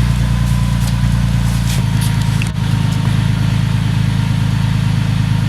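Nissan 370Z's 3.7-litre V6 idling steadily through a new AAM Competition 2.5-inch true dual catback exhaust, still on its raised cold-start idle. The low note shifts slightly a little under two seconds in, and there is a brief click about half a second later.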